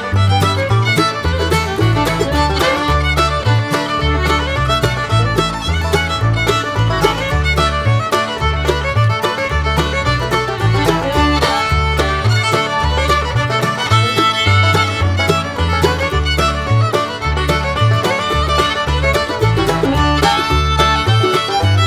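Background music with a fiddle melody over a steady, rhythmic bass line.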